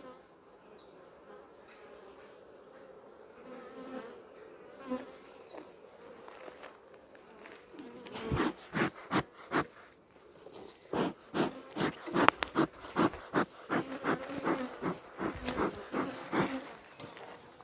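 Honey bees buzzing around an open hive, a steady hum. About eight seconds in, a rapid run of knocks starts and becomes the loudest sound.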